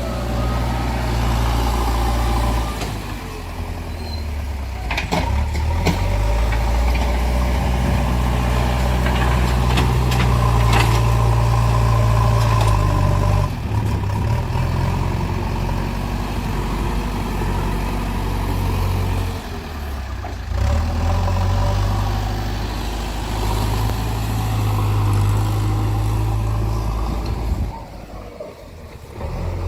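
Heavy vehicle engine running at low revs, its pitch stepping up and down several times. A few sharp clicks come about five and eleven seconds in, and the engine drops away briefly near the end.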